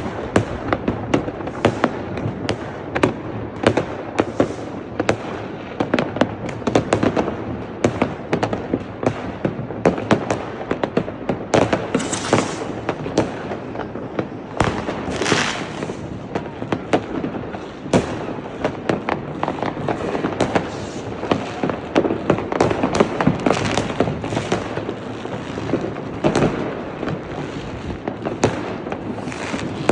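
New Year's Eve fireworks and firecrackers going off in a dense, continuous barrage of bangs and pops, many each second. Two brief hissing bursts stand out, about twelve and fifteen seconds in.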